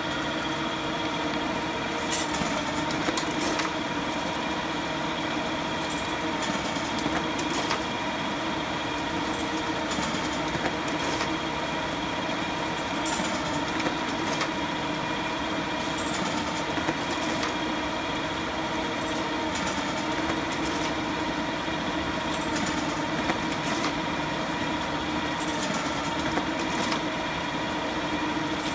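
Duplo 1060 paper collator tower running with a steady mechanical hum and whine, as it idles and feeds one collated set at a time. Short, sharper high noises come every few seconds.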